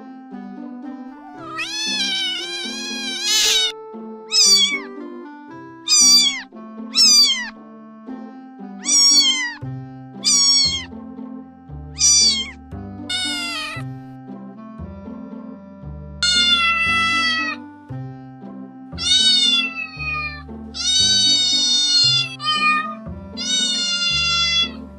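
Domestic cat meowing again and again, about a dozen meows, some short and falling in pitch, some longer and drawn out, over background music whose bass line comes in about ten seconds in.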